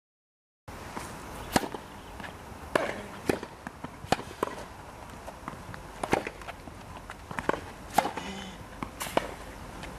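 Tennis rally: sharp pops of racquets striking the ball and the ball bouncing on the court, coming every half second to a second and a half. The sound cuts in abruptly under a second in, after a moment of silence.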